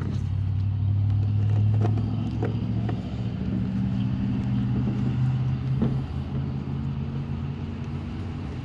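A motor running steadily, its pitch shifting slightly a couple of times, with a few light clicks over it.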